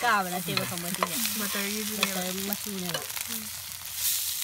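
Egg-dipped bread frying in a flat pan, sizzling, while a metal spatula scrapes under the slices to lift them. A wavering pitched tone slides down and holds over the sizzle.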